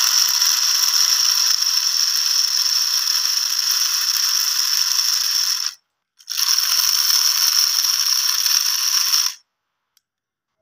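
Small geared DC motor of a homemade RC toy tractor running with a high, steady whir and gear rattle. It runs for about six seconds, stops briefly, then runs again for about three seconds and cuts off.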